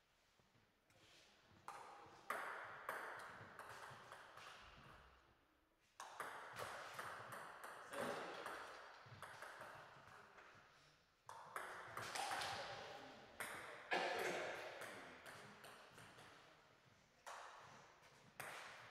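Table tennis ball clicking back and forth off the bats and the table in several rallies, with short pauses between points. Each hit echoes in a large hall.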